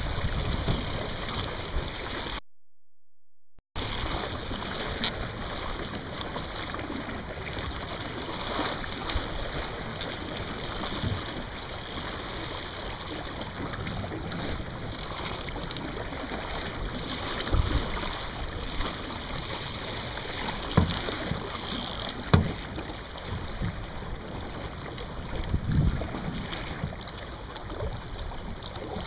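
Water rushing along the hull of a Sunfish sailing dinghy under way, with wind on the microphone and a few low knocks scattered through the second half. The sound cuts out briefly near the start.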